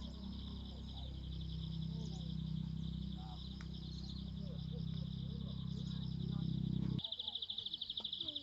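Forest insect chorus, a steady, rapidly pulsing high trill, with scattered short bird chirps. A low rumble under it stops abruptly about seven seconds in, and the insects then stand out louder.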